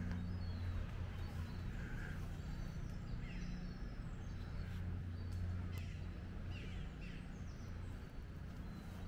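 Birds calling a few times, short falling calls about three seconds in and again near six and a half seconds, over a low steady rumble.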